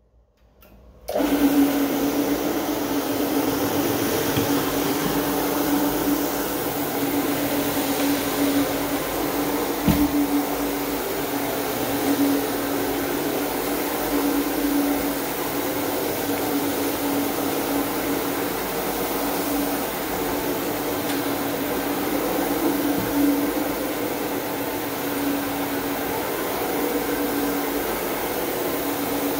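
Counter-rotating brush (CRB) carpet agitator switching on about a second in, then running steadily as it is pushed over the carpet to scrub the pile ahead of steam cleaning: a constant motor hum over brush noise, with one brief knock about ten seconds in.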